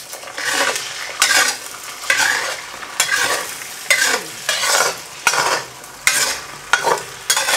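Beaten eggs sizzling in a hot, freshly seasoned hammered carbon steel wok while a metal wok spatula scrapes and pushes them around, in repeated strokes roughly one a second.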